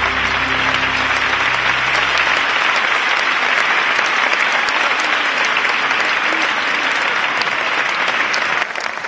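Audience applauding, a dense steady clatter of many hands, as the last held notes of the routine's music fade out in the first couple of seconds. The applause drops suddenly in level near the end.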